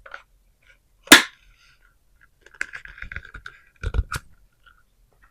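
A sharp, loud plastic snap about a second in, then a run of lighter clicks and rattles and two more sharp clicks near the end, from handling a Dyson Supersonic hair dryer and its magnetic attachments.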